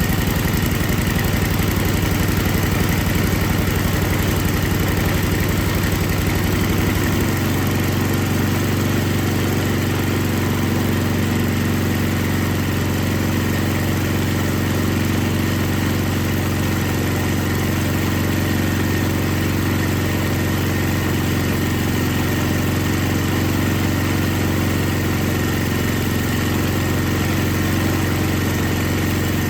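Tecumseh 5 hp engine on an MTD Yard Machines snowblower running steadily, now that its carburetor has been cleaned and reassembled. About seven seconds in its sound changes: the low rumble drops away and it runs on a little quieter.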